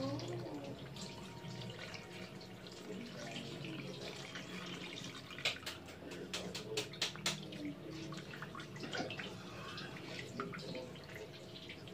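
Canned milk pouring in thin streams from two cans into a pan of mashed purple yam: a steady liquid trickle and splatter. A few sharp ticks come about halfway through.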